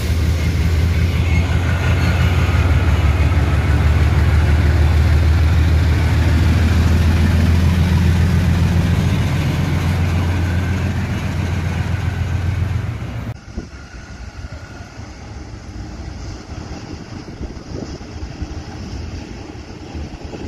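Diesel-electric locomotive 8007 (a KiwiRail DXR) departing under power. Its engine rumble is deep, loud and steady as it passes close by. About 13 seconds in it cuts off sharply to the quieter, low rumble of a train approaching.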